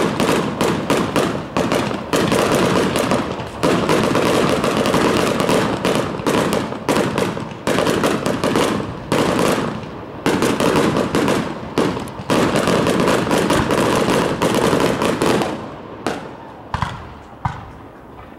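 Professional aerial fireworks bursting almost overhead: a dense, unbroken run of bangs and rapid pops that thins to scattered pops from about fifteen seconds in.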